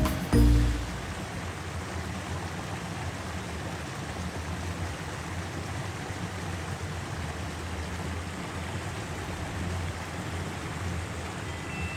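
River water flowing, a steady rush, after a short burst of music cuts off in the first second.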